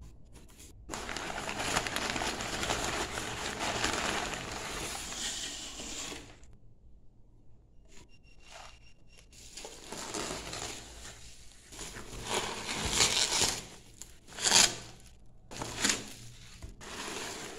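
Crumpled packing paper rustling and crinkling as it is pulled out of a cardboard box, then bubble wrap crinkling as wrapped packages are handled. There is a pause about six seconds in, and the rustling comes back with several sharp, louder crinkles near the end.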